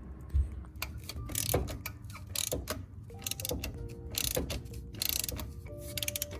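Socket ratchet wrench clicking in quick runs of strokes, with short pauses between them, as bolts are worked loose.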